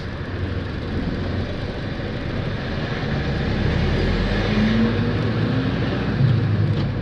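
Engine and road noise from a vehicle driving in city traffic, the engine note rising about halfway through as it picks up speed.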